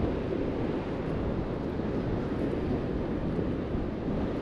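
Steady wind buffeting the microphone, a low rumbling noise, with ocean surf washing in underneath.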